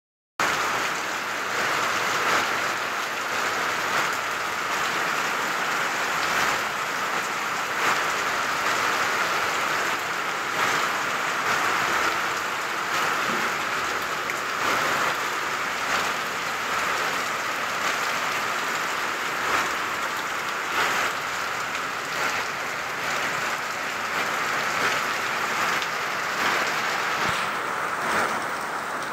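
Heavy rain falling steadily, with water pouring off roof edges and splashing onto the concrete below.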